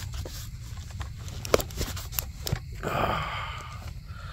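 Handling noise from a phone being held and moved: scattered small clicks and knocks over a steady low rumble, with a short hiss about three seconds in.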